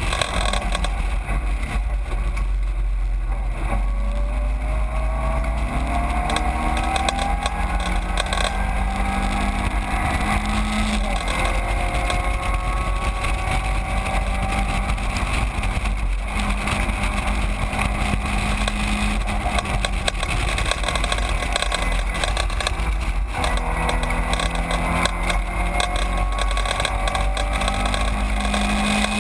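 Caterham 7 race car's engine heard from onboard at racing speed, its pitch climbing steadily as it pulls, with sudden drops in revs about 4, 16 and 23 seconds in at gear changes or lifts. A steady low rumble runs underneath.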